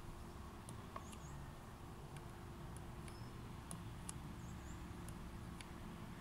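Faint, irregular clicks of a heat pump controller's keypad buttons being pressed while scrolling menus, about eight presses, with a few brief high chirps and a steady low hum underneath.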